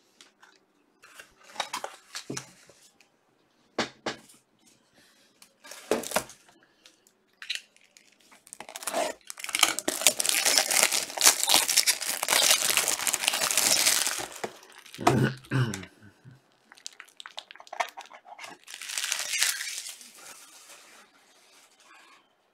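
Stiff clear plastic crinkling and rustling as trading cards are handled and put into plastic sleeves and a rigid top loader. Short scattered rustles come first, then a long, loud stretch of crinkling from about eight to fourteen seconds in, with one more brief crinkle near the end.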